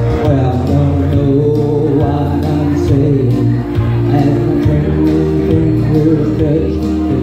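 A man singing into a handheld microphone over a recorded backing track with sustained bass notes, amplified through a PA speaker.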